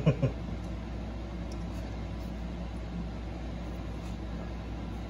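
Steady low hum and hiss of background room noise, with two brief short sounds right at the start.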